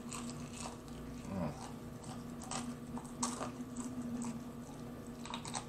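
Biting and chewing a fried chicken wing: a handful of short, separate bites and crunches spread through, over a faint steady hum.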